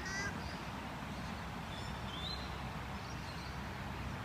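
Steady low rumble of traffic crossing the bridge overhead, with a few short, high bird chirps and whistles on top: near the start, about two seconds in, and again around three seconds in.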